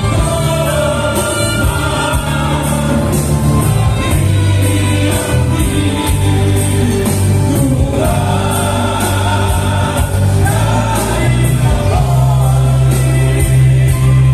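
A group of men singing a song together in harmony into microphones, backed by acoustic guitar, steady low bass notes and an even beat.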